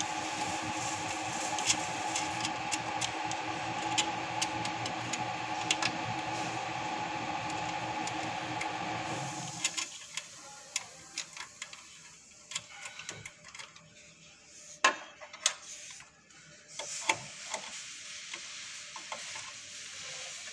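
Small metal clicks and taps of a screwdriver and cable lugs on the terminal screws of a power control unit, over a steady machine hum that cuts off about halfway through.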